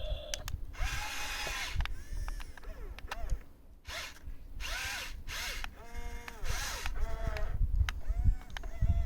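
Electric motor of a radio-controlled model excavator's hydraulics whining in short bursts, about a dozen in all, each rising then falling in pitch as the arm moves, over a low rumble.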